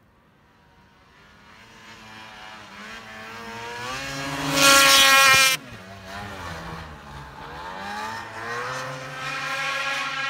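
Snowmobile with an aftermarket GGB exhaust can revving hard as it approaches, really loud for about a second as it blasts past close by halfway through. It drops in pitch, then climbs again as it rides away.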